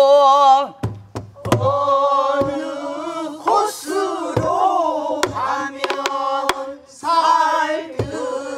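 Pansori singing with buk barrel drum: a woman's voice holds a long wavering note, then several voices sing the next phrases together. Sharp strokes on the buk mark the rhythm between and under the singing.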